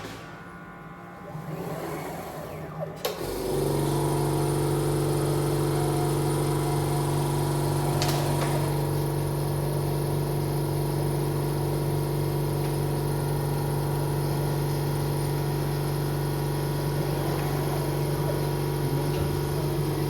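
An electric machine in an SMT assembly line, with light mechanical noise for the first few seconds, then a motor or blower switching on about three seconds in and running with a loud, steady hum. There is one sharp click about eight seconds in.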